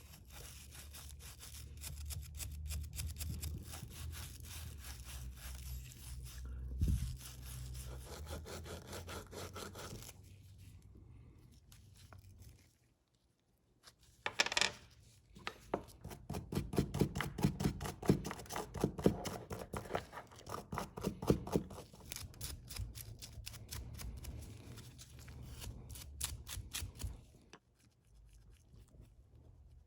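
Brush scrubbing small metal ratchet parts in quick repeated scraping strokes, with a single knock about seven seconds in and a short pause about halfway through.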